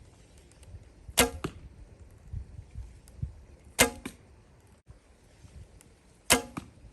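Three shots from a 30-lb laminated horsebow, about two and a half seconds apart: each a sharp snap of the string at release, followed a quarter second later by a fainter knock.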